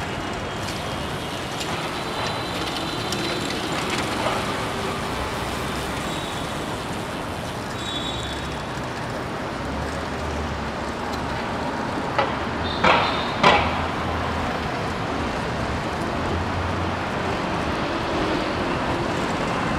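City street traffic noise heard from a bicycle in moving traffic: a steady wash of passing vehicles and engines. About twelve seconds in come three brief, sharper, louder sounds close together.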